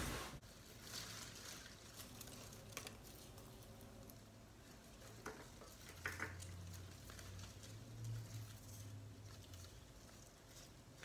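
Faint rustling and crackling of a pothos's leaves and soil-clogged roots being handled and pulled apart by hand, with a few soft clicks.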